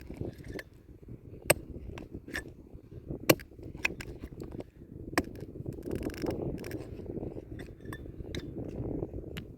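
Scattered sharp clinks and knocks of hard objects being handled, the loudest about one and a half, three and five seconds in, over a steady low background noise.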